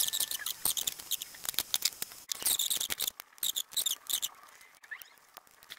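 Thin metal wires being pulled apart and laid out by hand on a wooden workbench: irregular rustling, scraping and light clicking of the wire strands, busiest from about two to four seconds in.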